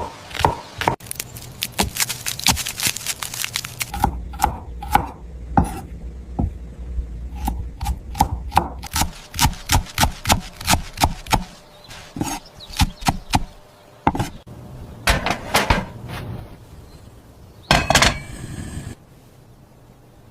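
Rapid runs of sharp knocks and clicks, uneven in pace, like chopping on a board, with a longer noisy scrape or rustle near the end.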